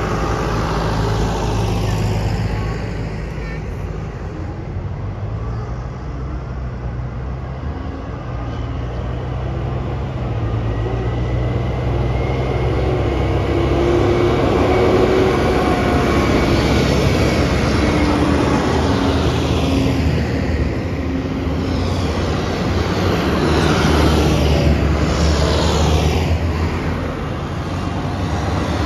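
Tractor diesel engines running as a convoy passes one after another, with tyre hiss on the wet road. The sound swells and fades as each vehicle goes by, loudest around the middle and again shortly before the end.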